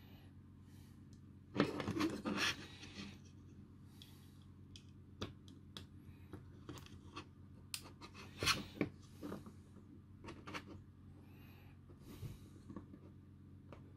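Hands handling a small circuit board and working the stiff legs of a replacement SB3100 diode into its holes: irregular scraping, rubbing and small clicks. The loudest scrapes come about a second and a half in and again around eight seconds in.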